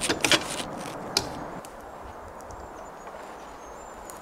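Steel chain links clinking and rattling against each other several times in the first second or so, then only a faint steady background.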